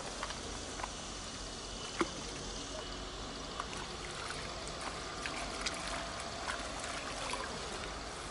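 Steady rush of flowing water, with scattered small clicks and ticks over it.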